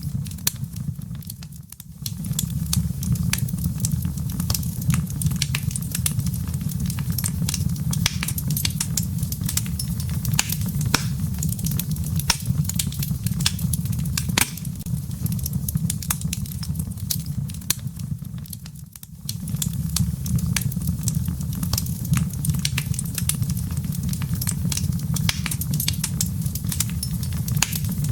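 Wood fire burning in a fireplace, crackling with frequent sharp pops over a steady low rumble of flame. The sound dips briefly twice, about two seconds in and again near nineteen seconds.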